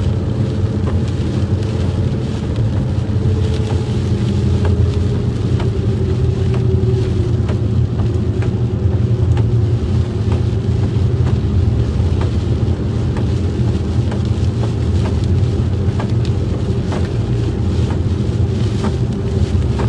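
Road and engine noise inside a moving car: a steady low rumble, with scattered light ticks throughout.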